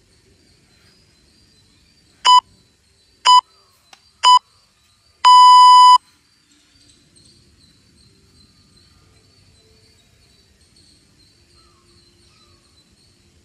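Interval-timer countdown: three short electronic beeps about a second apart, then one longer beep at the same pitch, marking the end of the timed interval.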